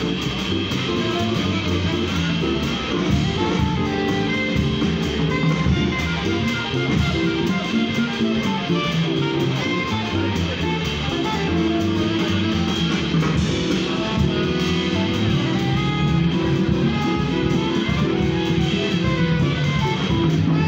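Live jazz from a small street band: plucked upright bass, drum kit and electric keyboard playing together without a break.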